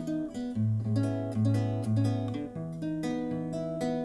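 Acoustic guitar playing chords with picked bass notes, an instrumental passage after the sung line.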